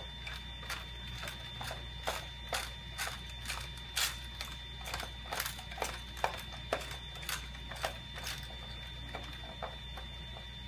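Cube 3 filament cartridge's gear wheel clicking as it is turned by hand with a screwdriver to back jammed filament out of the tube. The clicks come irregularly, about two to three a second, and thin out near the end, over a steady low hum.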